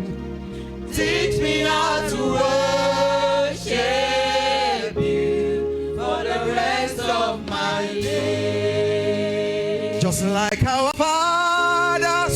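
Gospel choir singing drawn-out, wordless-sounding phrases with vibrato over steady held accompaniment chords.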